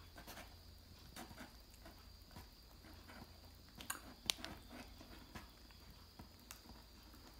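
Cat grooming itself, faint licking and nibbling at its fur as quiet irregular clicks, with two sharper clicks about four seconds in.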